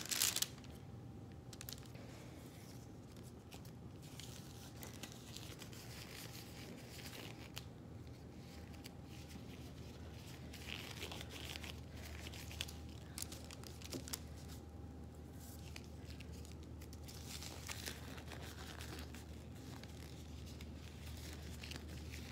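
Faint rustling and crinkling of a sterile glove wrapper and nitrile gloves as they are handled and pulled onto the hands, with a few small clicks, over a steady faint low hum.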